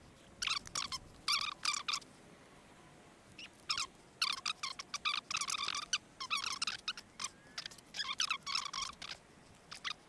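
Bursts of quick, light clicking and rattling, a second or so at a time with short pauses, from small metal parts being handled while the brake pads are worked on an e-bike's disc brake.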